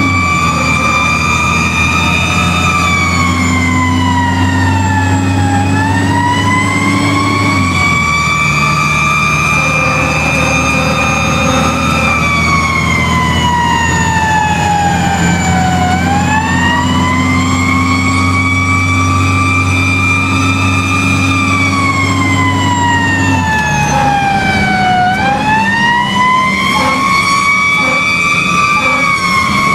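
Fire truck siren wailing, heard from inside the cab: three slow cycles, each rising to a held high tone and then falling away. The truck's engine runs underneath, its low note stepping down about a third of the way in and again near the end.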